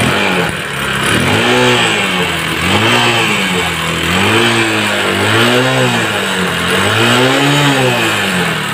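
Bajaj Discover's single-cylinder four-stroke engine running and revved up and down about five times. It runs evenly without misfiring on temporary bypass wiring.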